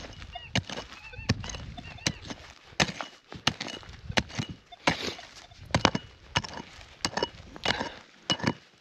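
Hand digging pick striking hard, stony ground again and again, about a dozen blows at roughly one every 0.7 s, chipping through compacted soil and gravel.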